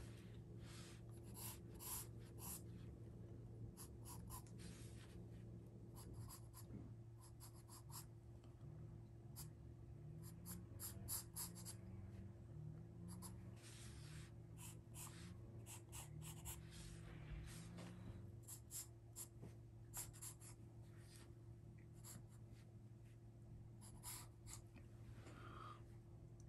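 Wooden pencil strokes scratching on drawing paper: faint, short strokes in quick irregular clusters as lines are drawn.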